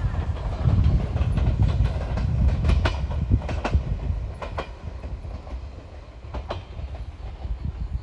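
Odakyu Line train running on the track, a low rumble with a cluster of sharp wheel clacks over the rail joints about three seconds in, then fading away.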